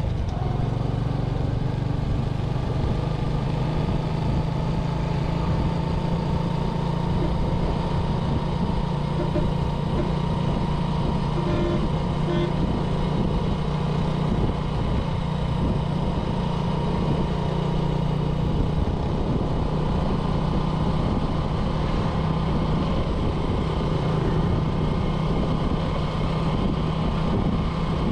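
Small motorbike's engine running at an even, steady speed while riding, with road and wind noise.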